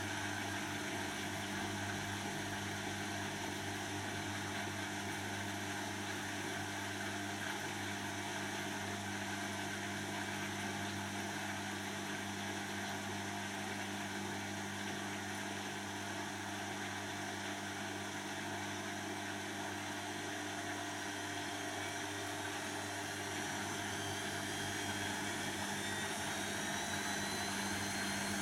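Beko WTB741R2A washing machine running with its drum spinning the load, a steady motor hum. Near the end a whine starts rising in pitch as the spin speeds up.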